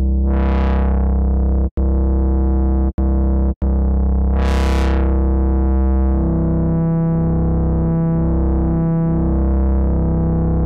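Ableton Live's Creative Extensions Bass synthesizer holding a low synth bass tone, its filter opening and closing twice in quick bright sweeps. The sound cuts out briefly three times in the first four seconds, and from about six seconds in it pulses slowly, about once a second.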